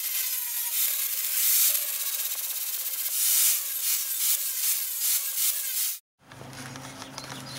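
Angle grinder with a flap wheel grinding rust off a steel gas-grill burner: a steady, high-pitched scraping hiss that swells and eases in strength. It cuts off abruptly about six seconds in, leaving a faint low hum.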